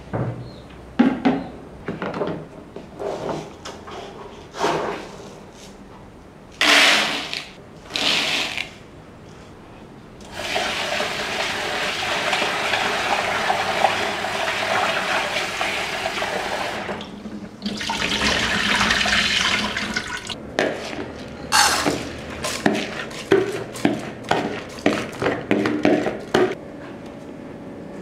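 Kitchen tap water running into a plastic rice-washing strainer bowl for about seven seconds, then stopping and running again for about two seconds. Before it come scattered knocks and two short rattling bursts. After it comes a quick run of sloshes and knocks as the rice is washed in the bowl.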